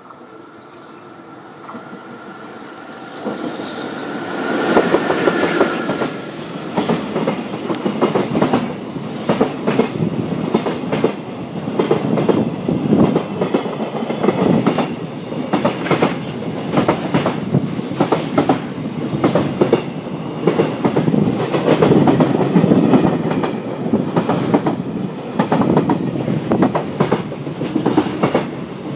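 Freight train hauled by a JR Freight EF66 electric locomotive passing close by: the train swells up over the first few seconds as the locomotive goes past, then a long line of container wagons runs by with a steady clickety-clack of wheels over the rail joints.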